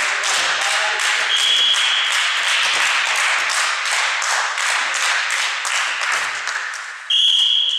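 Steady rhythmic hand clapping, with a referee's whistle blown briefly about a second in and again, louder and held, near the end. The second blast is the signal for the serve.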